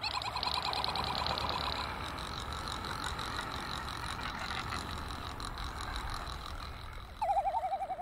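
Frigatebird courtship calls: a fast pulsing warble for the first couple of seconds, then a louder, lower rapid trill near the end, over steady background noise.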